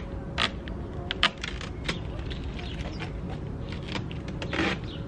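Cloth rubbing on the plastic front bumper of a car as it is wiped by hand: a few short sharp clicks and squeaks in the first two seconds, then a longer rubbing sound near the end, over a steady low rumble.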